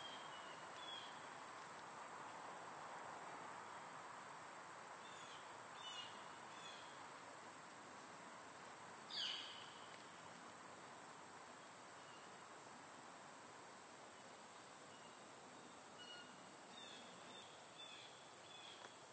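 Steady high-pitched drone of insects, with a few faint short chirps and one falling whistle about nine seconds in.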